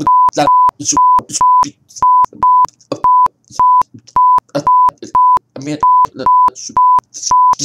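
Censor bleeps: a steady, high single-pitched beep repeated about twice a second, each beep about a quarter second long, cutting over a person's speech so that only short fragments of talk come through between the beeps.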